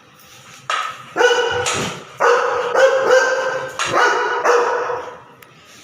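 Dog barking, a run of four or five loud, drawn-out barks.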